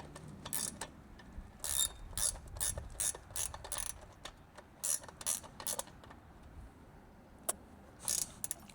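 Hand ratchet clicking through runs of short strokes, about two a second, with a pause partway through and a few more strokes near the end.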